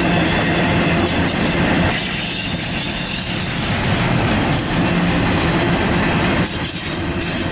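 Double-stack intermodal well cars rolling past at close range: a steady rumble of steel wheels on rail. Thin high wheel squeal comes and goes, and a few sharp clacks sound near the end.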